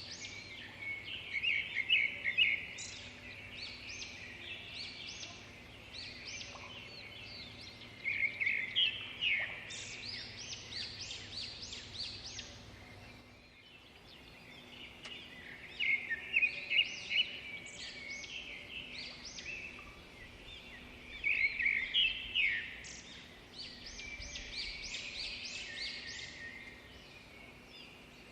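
Bird song in bouts of quick chirps and trills, a few seconds each, coming about every six or seven seconds over a faint steady hum.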